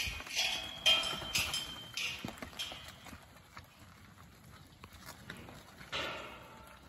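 A mob of black cattle in a dirt yard, with a run of short, sharp noises in the first three seconds and another about six seconds in.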